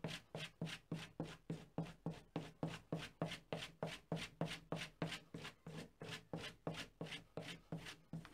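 A plane blade being stropped on a leather strop charged with cutting compound. Its quick, even backstrokes of steel rubbing on leather come at about four a second, putting the final polished, razor-sharp finish on the edge.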